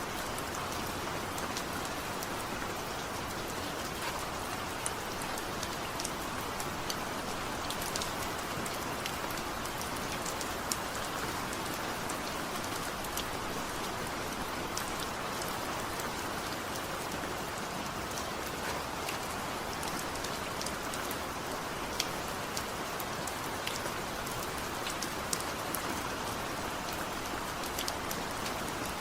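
Heavy rain falling steadily with no thunder, a constant hiss with scattered sharp drops striking close by.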